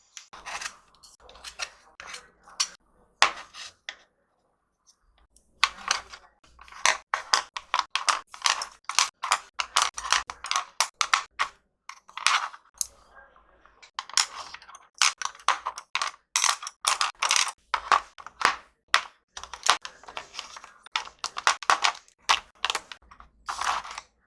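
Paintbrushes and markers being handled and set down: a rapid, uneven run of small hard clicks and taps, with a brief pause about four seconds in.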